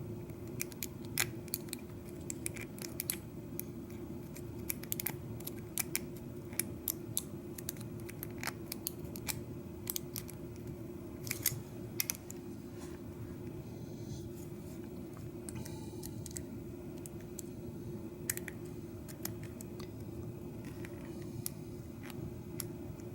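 Lock pick and tension pry bar working inside a Schlage mortise cylinder, picking the pins: small, sharp metallic clicks and scrapes at an irregular pace, often several a second.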